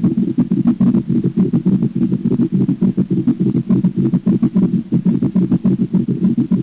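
An animal's heart sounds heard through a stethoscope, a rapid, steady run of low beats with a murmur between them.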